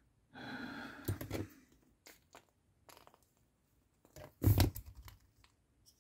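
The plastic and metal parts of a motorised folding wing mirror's fold mechanism being handled and fitted together by hand: rustling and scattered small clicks, with a louder thump about four and a half seconds in.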